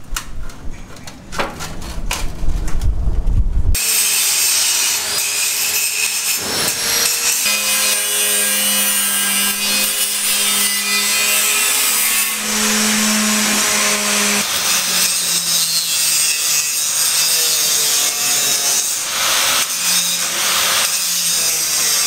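A low rumble with a few sharp knocks. Then, about four seconds in, a handheld angle grinder starts cutting steel bar and square tube: a loud, continuous gritty hiss over the motor's hum, which sags in pitch now and then as the disc bites into the metal.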